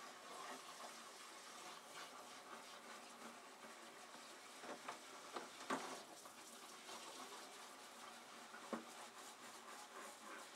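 Faint splashing and scrubbing of dishes being washed by hand in a kitchen sink, with a few light knocks of cookware around the middle and one more near the end.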